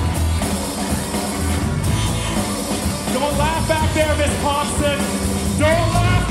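Live band of electric guitars, bass, drum kit and congas playing a steady dance groove, with a voice coming in over it about three seconds in.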